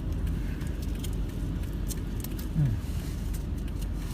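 Road noise heard from inside a moving car: a steady low rumble of engine and tyres with small rattles and clicks. About two and a half seconds in there is one brief, low, falling tone.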